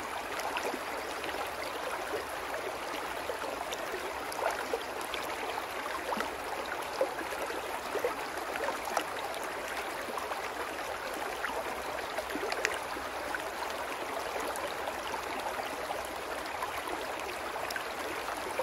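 Shallow brook babbling over rocks: a steady rush of running water, with small gurgles and a few brief louder splashes scattered through it.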